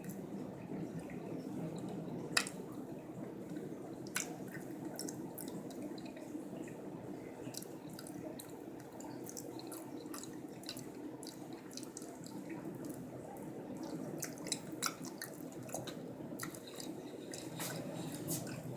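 Soft wet clicks and smacks of a person chewing soft, creamy durian flesh, scattered irregularly, the sharpest about two seconds in. Under them runs a steady trickling, dripping water sound.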